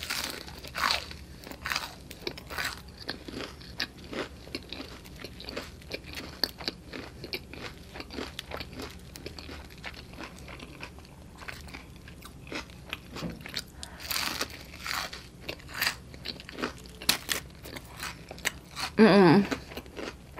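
Close-up crunching and chewing of a thick battered fried onion ring, the coating crackling with each bite. There are sharper, louder crunches around two-thirds of the way through, and a brief hummed vocal sound near the end.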